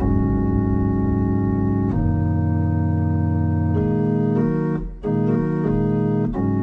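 Background music of sustained organ-like keyboard chords, changing every second or two, with a brief drop about five seconds in.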